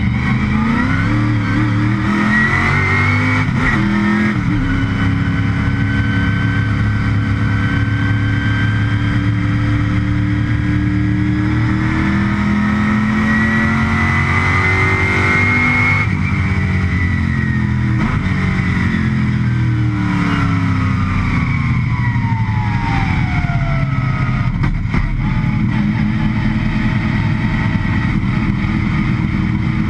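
Stock Car Brasil race car's V8 engine, heard from inside the cockpit, on a fast lap: it revs up and drops sharply at each gearchange, holds a long climbing pull, then its pitch falls steadily as it slows before accelerating again near the end.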